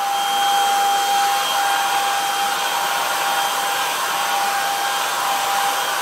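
Greenote GSC50 cordless stick vacuum running steadily in handheld mode with a brush tool: a constant high motor whine over rushing airflow as it is drawn over a fabric settee, picking up dog hair.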